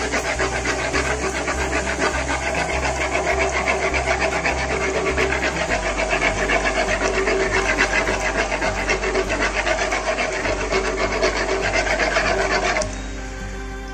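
Buns deep-frying in hot oil: a steady, dense sizzling and crackling of oil bubbling around the dough. It cuts off abruptly near the end.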